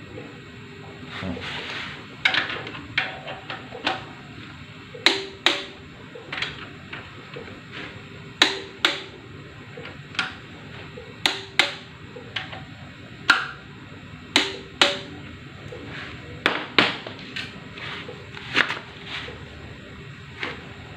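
Sharp metallic clicks and knocks from hand tools working on a diesel engine's connecting rods, about twenty of them at irregular spacing, many in pairs about half a second apart.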